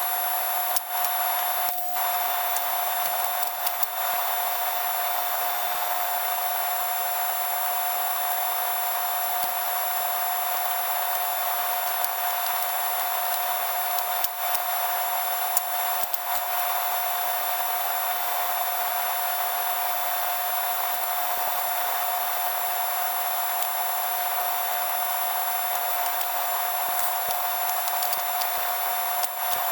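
A steady rushing hiss with a constant mid-pitched tone running through it and a few faint ticks scattered in.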